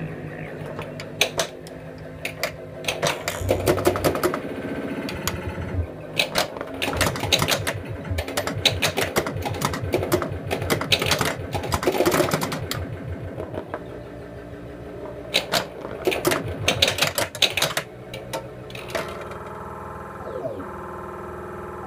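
1980 Williams Alien Poker pinball machine in play: rapid runs of clicking and knocking from its solenoids, pop bumpers and switches as the ball is scored, mixed with electronic sound effects. In the last few seconds the clatter stops and a steady electronic drone with falling tones takes over.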